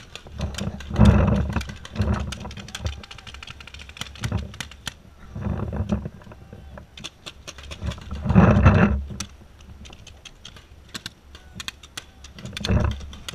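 Scattered sharp pops of paintball markers firing across the field, with several louder bursts of low rumble and rustle on the camera microphone as the player moves and crouches, the loudest about a second in and again about eight seconds in.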